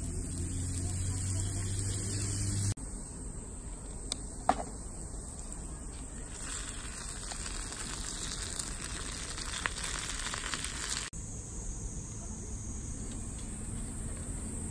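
Pork loin sizzling as it roasts over a small tabletop fire stove, with a low hum for the first few seconds and a single sharp click about four and a half seconds in.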